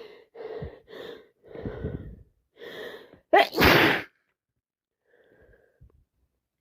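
A woman with a heavy head cold sneezing. Several short breaths come first, then one loud sneeze about three and a half seconds in.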